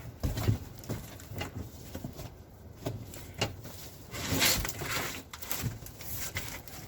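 Handling a new lawn mower and its cardboard packaging: scattered knocks and clicks, with a stretch of rustling about four to five seconds in.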